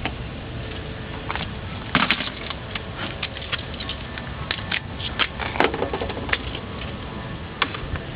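Irregular clicks and knocks of parts and tools being handled under a car's hood, over a steady low background noise; the sharpest knocks come about two seconds in and again past the middle.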